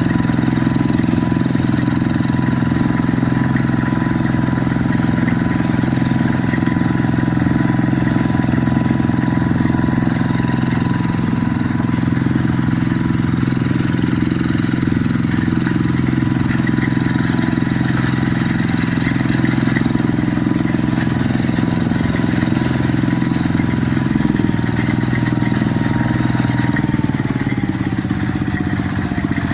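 Quick G1000 hand tractor's engine running steadily under load, its speed dropping near the end.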